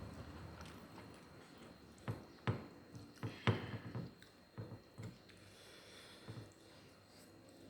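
Close-up eating sounds: a run of short wet smacks and clicks of chewing, bunched together from about two to five seconds in, with a couple more later.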